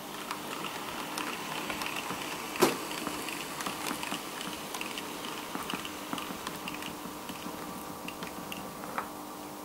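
Arnold TT-scale model BR 58 steam locomotive and a loaded flat wagon running along the track, with many small irregular clicks from the wheels over rail joints and one sharper click about two and a half seconds in.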